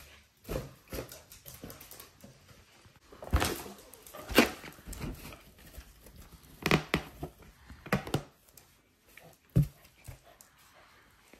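Pembroke Welsh corgi playing with a balloon: a series of irregular sudden thumps and scuffs, the loudest a little over four seconds in, mixed with short dog noises.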